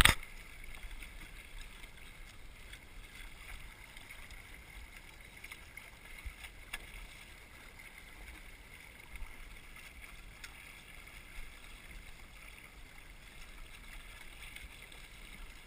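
Rowing eight under way: a steady wash of water and wind noise, with a few faint clicks from the boat and oars. A brief loud knock right at the start.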